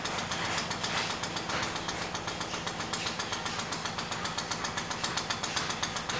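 A machine running steadily: a low hum with a fast, even pulsing.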